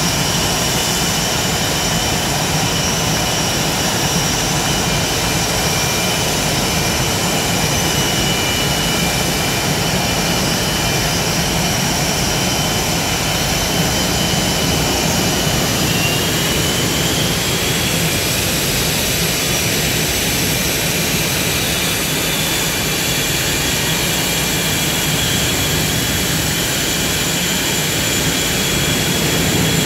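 Blue Angels F/A-18 Hornet jets running their twin General Electric F404 turbofan engines as they taxi: a loud, steady roar with high whining tones over it. One whine rises a little in pitch about halfway through.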